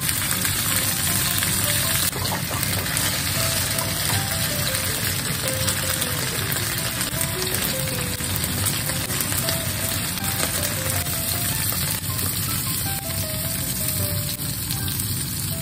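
Chicken pieces in sauce, sausages and bok choy sizzling steadily in a frying pan, with chopsticks moving the food about.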